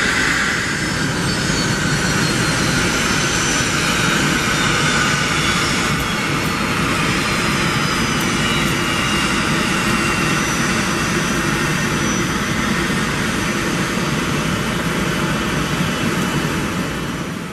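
Jet airliner engines running loud and steady, with high whining tones that slowly fall in pitch.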